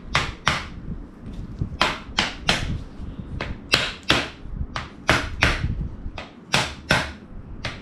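Rubber mallet knocking a crown race down onto the steerer tube of a RockShox Pike suspension fork through a cloth: a run of sharp knocks, about two or three a second, with a gap of about a second near the start.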